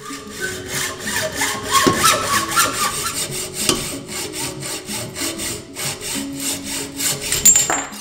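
Hacksaw cutting through a Fox 38 fork's aluminium steerer tube held in a saw guide: a steady run of quick, even back-and-forth strokes.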